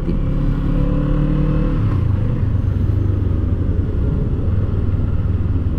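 Kawasaki Eliminator 450's parallel-twin engine running under way, heard from the rider's seat. Its higher engine tone fades about two seconds in, leaving a steady low rumble.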